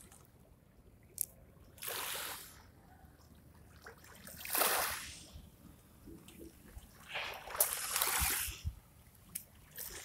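Small Black Sea waves washing up on a pebble beach: three soft swells of surf hiss, each rising and falling over a second or two, a few seconds apart.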